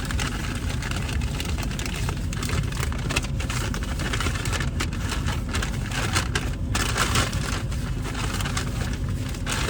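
Paper fast-food packaging rustling and crackling in irregular bursts, over the steady low rumble of a car heard inside its cabin.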